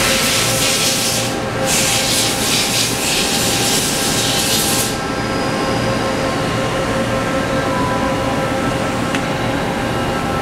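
Hardinge Conquest T42SP CNC lathe running under power: a steady machine hum with several held tones. Over it, a loud hiss in the upper range lasts about the first five seconds, with a brief break about a second and a half in.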